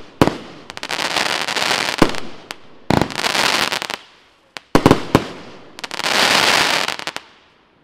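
Evolution Fireworks 'Golden Age' firework going off: sharp bangs as shots burst, each followed by a long dense crackle. This repeats about four times, and the sound dies away just before the end.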